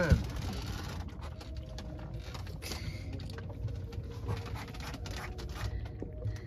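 A tangra catfish being unhooked by hand on a wooden boat deck: scattered small clicks, knocks and rustles of hook, line and fish, with a sharp knock right at the start, over a steady low rumble.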